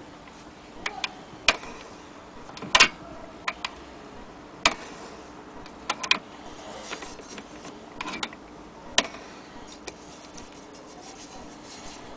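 Irregular sharp clicks and taps from hands handling the turntable of an HMV Model 102 gramophone at its centre spindle, where a small retaining clip is fitted. Roughly a dozen scattered clicks, the loudest a little under three seconds in.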